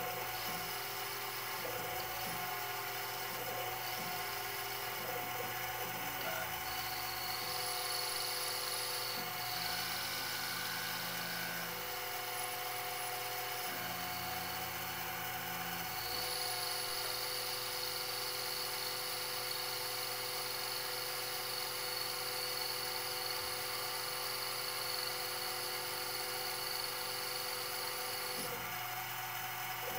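Small CNC lathe turning a metal part with a carbide insert: a steady high-pitched machine whine whose pitch shifts in steps several times.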